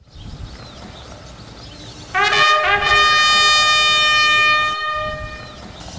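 A horn blown in one long, loud note: it starts with a short upward-swooping blast, restarts, holds steady for about two seconds and then fades away. A low rumble runs underneath.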